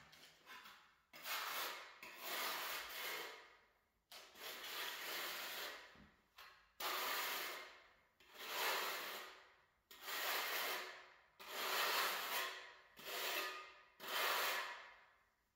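A steel trowel scraping and spreading thinset mortar across the back of a ceramic floor tile (back-buttering), in about ten strokes of a second each.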